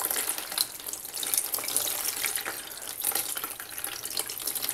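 Cool water poured steadily from a plastic pitcher, splashing onto a wet dyed cotton shirt in a plastic tub as the excess dye is rinsed out.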